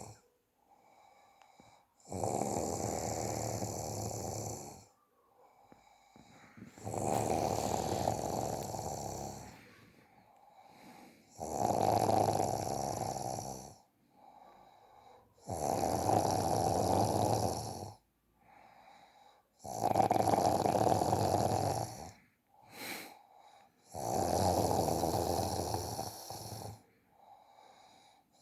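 A person snoring in a steady rhythm: six loud snores about four seconds apart, each two to three seconds long, with quieter breaths between them.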